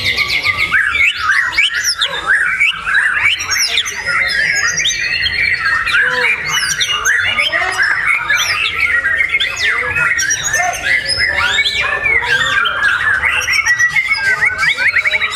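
Caged white-rumped shama (murai batu) singing a loud, continuous, varied song of rapid whistles, sweeps and trills, with no pause.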